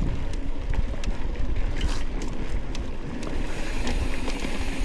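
Wind rumbling on the microphone of a moving bicycle, with tyre noise and scattered clicks and rattles from the bike on a dirt trail.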